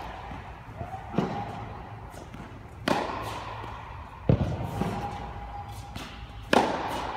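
Tennis ball in a rally on an indoor hard court: sharp racket strikes and ball bounces, four loud ones about a second and a half apart with softer ones between, each echoing through the hall.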